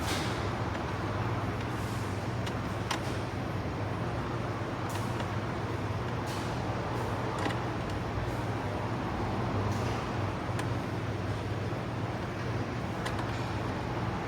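Scattered light clicks and knocks of plastic dash trim pieces being handled and fitted, over a steady low hum.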